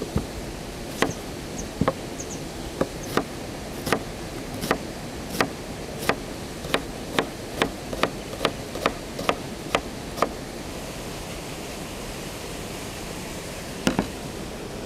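Knife chopping vegetables on a cutting board: a run of sharp cuts that quickens to about two or three a second and stops about ten seconds in, then two more cuts near the end.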